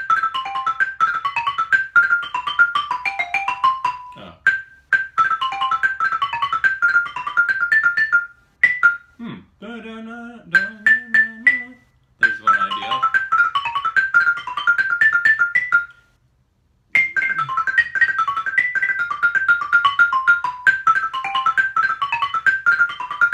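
Xylophone played with two mallets in fast runs of evenly repeated notes, improvising on chord tones in the 'xylophone rhythm' style. The playing comes in three phrases, with short breaks about nine and sixteen seconds in.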